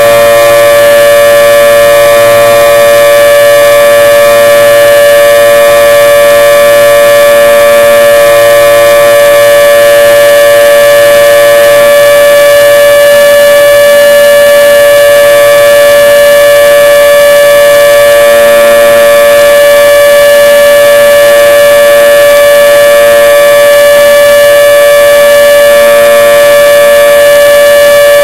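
Federal Signal 2T22 dual-tone electromechanical warning siren sounding at full speed on its monthly test: a loud, steady chord of several tones at once, holding its pitch without rising or falling.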